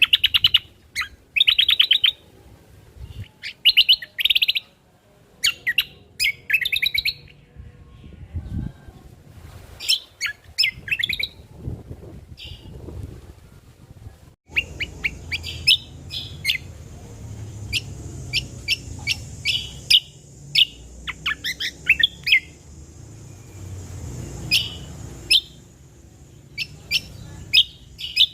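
Cucak kombo (kecial kombok) bird singing in short, rapid bursts of high chattering trills with brief pauses between phrases. About halfway through the recording changes and a faint steady hiss sits under the song.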